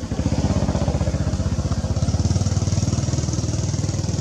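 A small engine running close by with a fast, even putter, low in pitch.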